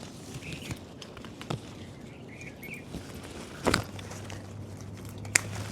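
Rustling and scattered clicks of lemons being picked by hand from a lemon tree, with two sharp snaps, one about three and a half seconds in and one near the end.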